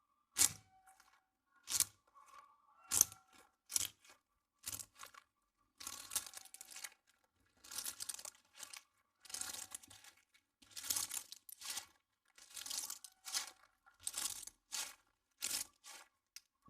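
Crunchy slime or squishy-toy material being pressed and squeezed, crackling with each press. The presses come as separate crunches about once a second at first, then run into longer, denser crackling from about six seconds in.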